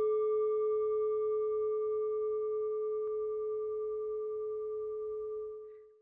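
A single struck bell-like chime, a low ringing note with a few fainter higher overtones, sustaining and slowly dying away, fading out near the end.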